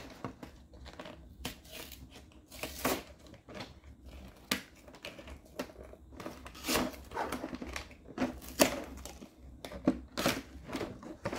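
Irregular crinkling, tearing and clicking as fingers pick at and peel a seal off a plastic Hatchimals Mini Pixies Fashion Show toy box, with a handful of sharper crackles scattered through.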